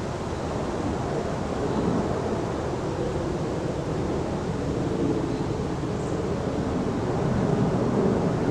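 Wind buffeting the microphone: a steady, fluttering low rush.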